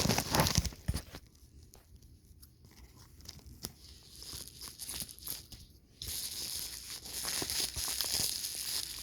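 Toy packaging being pried and torn open by hand, crinkling and tearing. A burst of crinkling in the first second gives way to scattered small clicks and rustles, and steady crinkling starts again about six seconds in.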